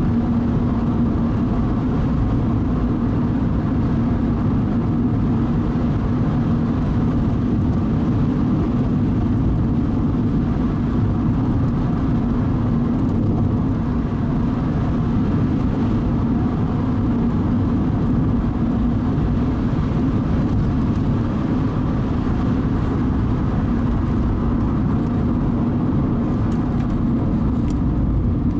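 Car driving along at a steady speed: continuous road and engine noise with a steady low hum, unchanging throughout.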